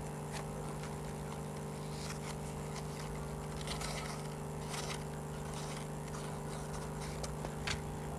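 A steady low mechanical hum with several fixed pitches, such as a fan or motor running in the room. Over it, faint brief rustles and crackles come from paper and floral tape being handled and wrapped around a paper rose's stem.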